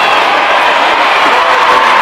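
Concert crowd cheering and screaming, many voices at once with shrill high screams standing out.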